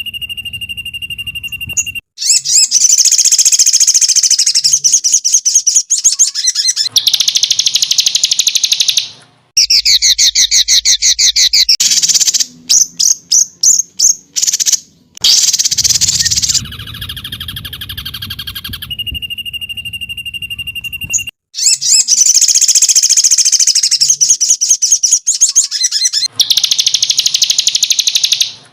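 Songbird masteran recording: a bird singing rapid, high-pitched trills and fast runs of repeated notes in a 'tembakan' style. Near the start there is a steady whistle. The same sequence of song phrases comes round again about 19 seconds later, as an edited loop.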